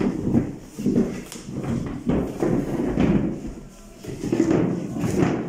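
Room bustle: several people moving about among plastic chairs and tables, with indistinct voices and a few light knocks.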